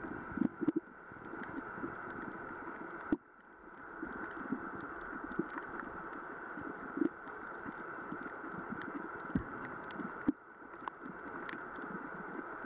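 Underwater ambience picked up by a submerged camera: a steady muffled hiss with many scattered sharp clicks and crackles and irregular low thuds. The sound drops out abruptly for a moment twice, about three seconds in and near ten seconds, then comes back.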